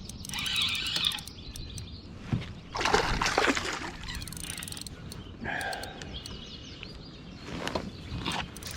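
Water splashing in short bursts as a hooked largemouth bass thrashes at the surface while being fought and landed beside a kayak, with birds singing in the background.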